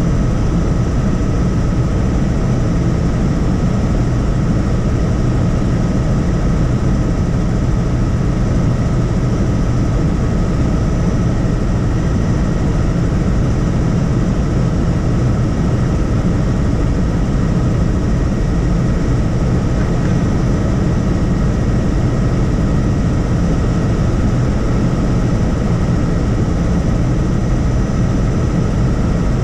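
Helicopter running steadily: an even low rumble from the rotor and engine, with a steady thin whine above it.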